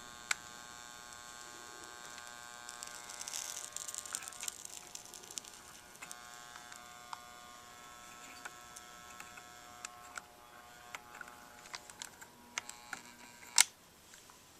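Soldering gun buzzing while it is held on, heating solder on a battery terminal, with a run of small crackles and ticks a few seconds in. The buzz cuts off about twelve seconds in, followed by a few clicks.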